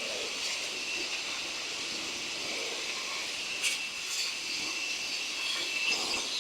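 BODA BLC420 brushless concrete cutting saw with a 420 mm blade running through a concrete floor: a steady high whine over a grinding hiss, with one sharp tick about three and a half seconds in.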